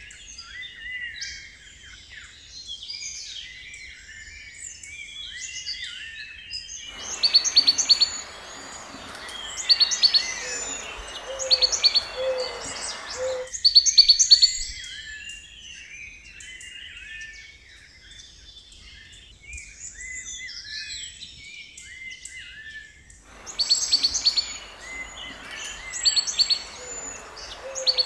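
Birds calling and chirping in chorus, a mix of short whistles and chirps. Twice a noisy layer comes in and drops out abruptly, with a loud, sharp call repeating about every two seconds on top of it.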